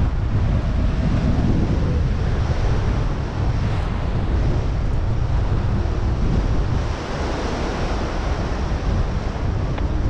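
Wind rushing over the microphone of a camera carried on a flying paraglider: a steady low rumble with uneven buffeting and no let-up.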